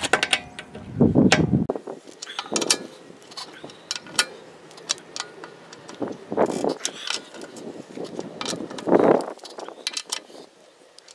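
Metal hand tools clicking and clinking on the lug nuts as a car wheel is tightened down, with several heavier knocks.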